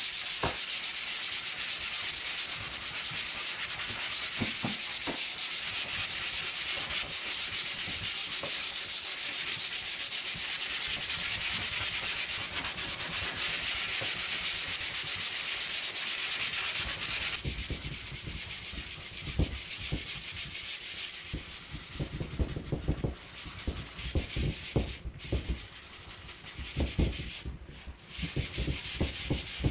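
Hand sanding the side table's surfaces with a sanding block: a steady rasping scrub of sandpaper on the panel. After about 17 seconds the strokes grow lighter and more broken, with soft knocks mixed in.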